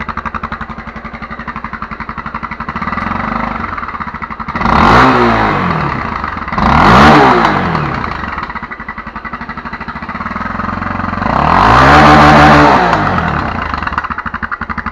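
Honda XRE 300 single-cylinder engine idling with a pulsing, chopping beat, 'de helicóptero', from a washer set in its exhaust pipe to make it sound like an XT 660. The throttle is blipped twice in quick succession about five and seven seconds in, then held in a longer rev near the end before it drops back to idle.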